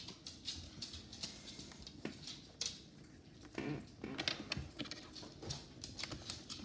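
Faint clicks and rustling of hands handling a white 30-pin cable at the edge of an iPad 2, fitting it into the dock connector.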